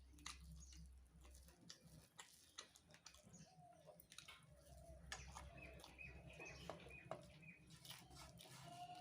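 Faint scattered clicks and crunches of someone eating puffed rice (muri), with faint bird calls in the background, a few short chirps in the second half.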